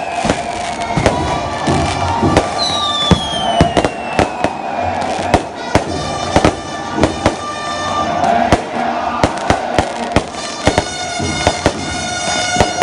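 Fireworks going off in a rapid, irregular string of sharp bangs, with two long falling whistles from whistling rockets, one at the start and one about three seconds in.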